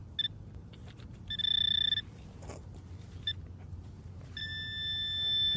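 Metal detector sounding a high-pitched target tone in short bursts: a brief blip, a tone under a second long, another blip, then a longer tone over the last second or so that grows louder. The tone signals a buried metal target.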